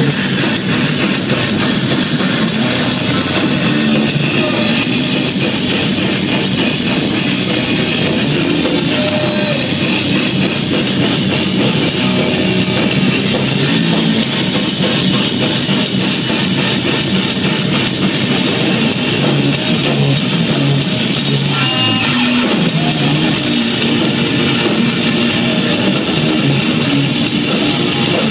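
Live heavy rock band playing loud, with electric guitars and drums, steady with no break.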